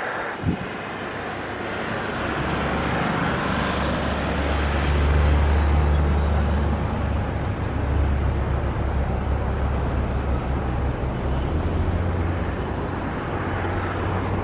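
Airbus A330neo's Rolls-Royce Trent 7000 turbofans on final approach with the landing gear down: a steady jet rumble that swells a little, loudest about five seconds in.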